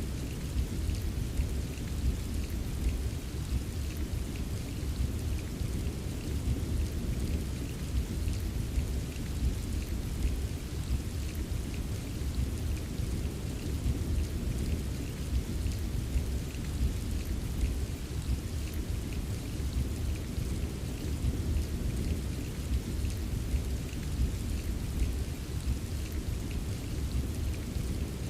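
Steady rain ambience: an even wash of rainfall with a deep, continuous low rumble under a fine patter of drops.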